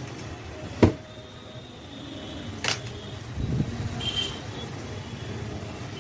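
Two sharp clicks about two seconds apart, the first one loud, then a dull thump, over steady low background noise, with a brief faint high chirp later on.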